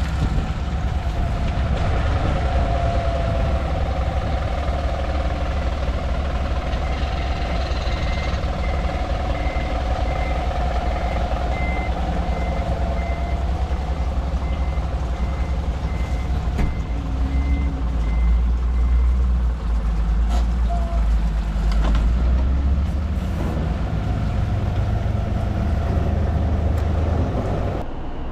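Deep, steady rumble of a large vehicle's engine, with a run of short, evenly repeated electronic beeps that lasts about twelve seconds.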